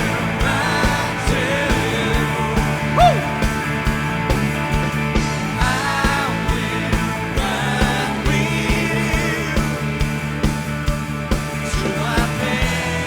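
Live worship rock band playing an instrumental passage: drums keep a steady beat under a held bass, with a lead line that slides and bends in pitch over it.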